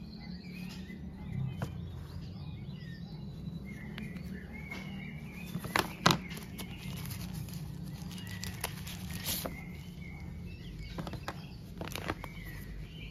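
Plastic packaging rustling and crinkling as plastic phone cases are unwrapped and handled, with sharp plastic clicks and taps scattered throughout; the loudest pair of clicks comes about six seconds in.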